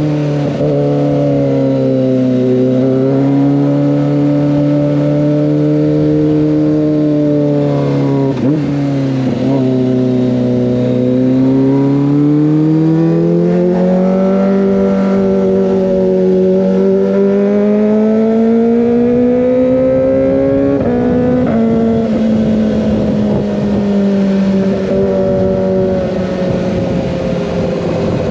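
Kawasaki ZX25R's 250 cc inline-four running through an Over Racing GP-RS full-system exhaust while being ridden. The engine note dips and rises gently with the throttle, then climbs slowly for several seconds. About three quarters of the way through it steps down slightly and holds steady.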